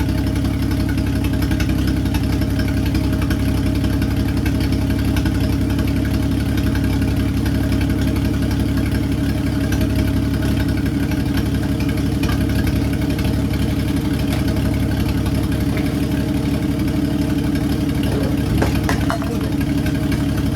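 1952 Dodge Meadowbrook's flathead straight-six engine idling steadily.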